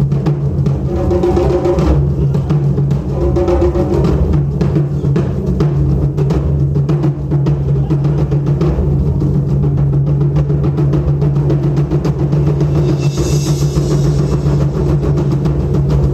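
Ensemble of Japanese taiko drums playing a fast, dense rhythm of continuous strikes, with a short bright hiss of metal about three-quarters of the way through.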